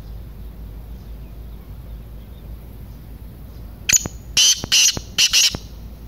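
Black francolin calling: a quick series of about five loud, harsh, grating notes, starting about four seconds in.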